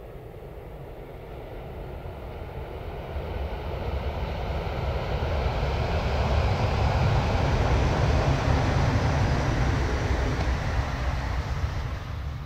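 E956 ALFA-X test shinkansen passing at about 336 km/h on a viaduct: a rushing noise with a deep rumble that builds over several seconds, peaks about two-thirds of the way in, then fades.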